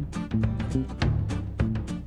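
Background music with a driving drum beat, about four hits a second, over a stepping bass line.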